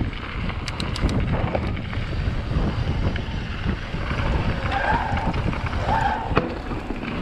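Mountain bike riding down a dirt trail: wind buffeting the microphone over the rumble and rattle of the tyres and bike on rough ground, with a few sharp clicks near the start and two brief higher-pitched sounds about five and six seconds in.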